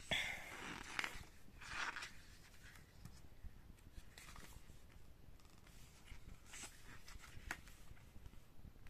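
Paper pages of a hardcover booklet being turned and handled: a few soft swishes in the first two seconds, then faint light rustles and taps.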